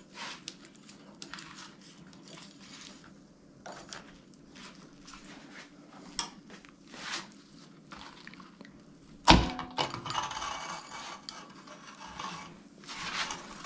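Hands working the heating-element assembly out of an electric storage water heater's tank: light rustles and clicks, a sharp knock about nine seconds in, the loudest sound, then a few seconds of scraping and rubbing.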